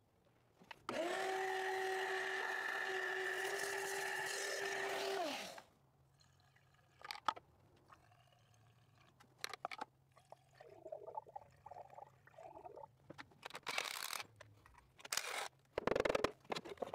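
A small electric motor whirs at a steady pitch for about four and a half seconds, winding up at the start and down at the end. Then come scattered clicks and knocks of hand work on the engine, and oil glugging from a jug as it is poured through a funnel into the spark plug holes, with a couple of short rushing bursts near the end.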